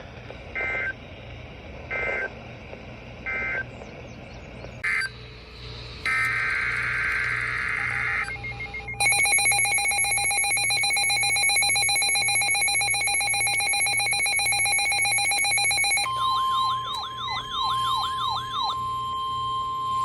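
Emergency alert signalling tones between two weather warnings: three short bursts of digital alert-header data, then a longer data burst, then a loud steady electronic alert tone that changes about 16 s in to a single steady tone with a repeating warbling chirp over it.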